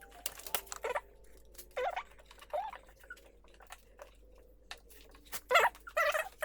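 Irregular clicks, scrapes and short squeaks of parts and tools being handled, with a busier cluster near the end.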